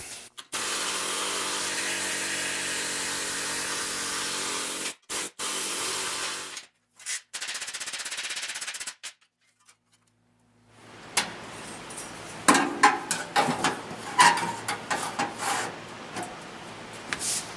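A power tool running steadily in a few abruptly cut stretches, then a run of irregular sharp blows with a short metallic ring, as of a hammer working sheet-steel patch panels.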